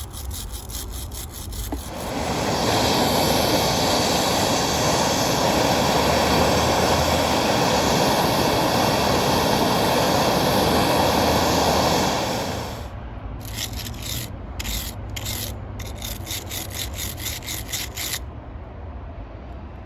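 Stick welding arc crackling and sizzling steadily for about ten seconds as an aluminum welding rod is run on cracked aluminum winch parts. It then cuts off, followed by a few seconds of short, intermittent scratching noises.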